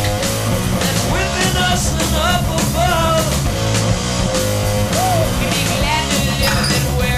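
Loud rock music soundtrack with a steady beat and gliding melody lines.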